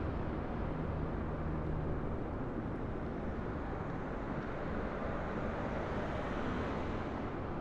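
Jet airliner engine noise from a departing plane: a steady rushing rumble, with a low hum that fades out about two seconds in.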